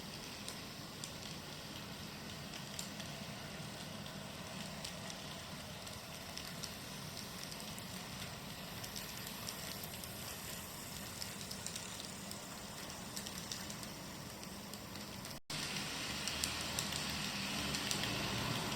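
N-scale Tobu 2000 series model train, driven by a TM-06R power unit, running on its track: a low motor hum under a steady crackle of small clicks from wheels on rail joints. About three-quarters of the way through the sound breaks off for an instant and comes back louder.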